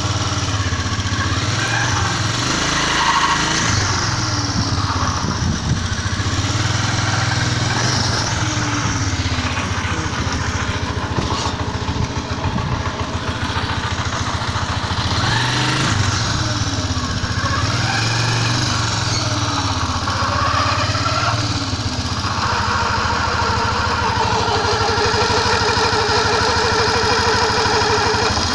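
A 150Z motorcycle engine running, its pitch rising and falling several times and settling into a steadier, higher note over the last few seconds. It is making a strange noise whose cause the owner does not know.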